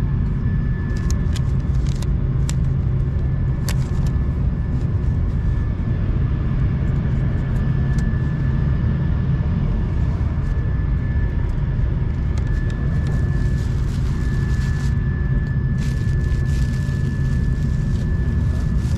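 Steady low rumble of an Airbus A330-200's cabin at the gate, with a thin steady whine over it. A few clicks come in the first few seconds as the seat pocket is handled, and the plastic wrapping of a blanket crinkles near the end.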